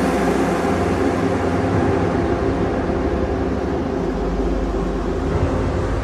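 Electronic background music with sustained low notes.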